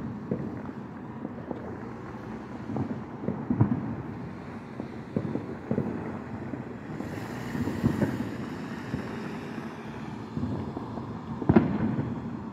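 Distant fireworks booming at irregular intervals, the loudest thud about a second before the end, over a low wind rumble on the microphone. A brief hiss rises about seven seconds in.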